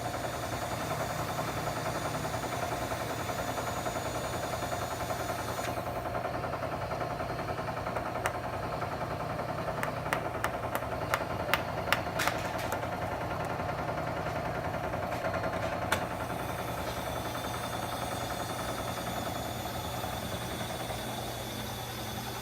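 Steady machine hum of a machine shop, with about ten sharp light clicks or taps in the middle.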